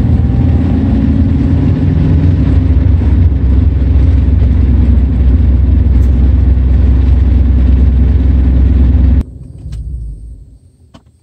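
Ford Mustang V6 engine and road noise heard from inside the cabin while driving, a steady low rumble. About nine seconds in it cuts off abruptly, leaving a faint fading rumble and a few light clicks.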